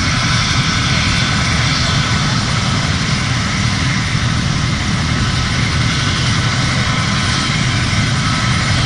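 Helicopter's turbine engines running steadily on the ground: a steady high whine over a low rotor rumble.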